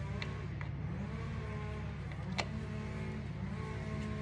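Steady low mechanical drone, with a few sharp clicks from a Torx driver on the primary cover bolts.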